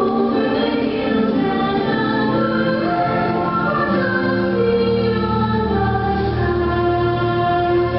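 Fireworks show soundtrack: choir singing long held notes over orchestral music, with a low bass note swelling in about three seconds in.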